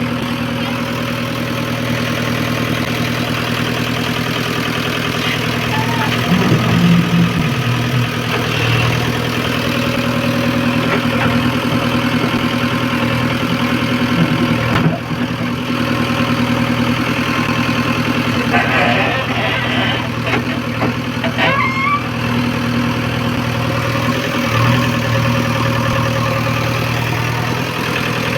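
Heavy diesel engine idling steadily, with a few brief changes in engine note.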